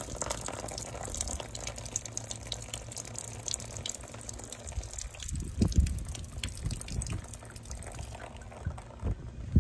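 Water trickling and splattering from an open pipe fitting as the shut-off line drains down, with scattered drips. A few low thumps come about halfway through and again near the end.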